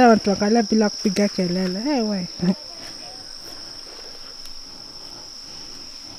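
Steady high-pitched drone of insects such as crickets in woodland. A person's voice is heard over it for the first two and a half seconds or so.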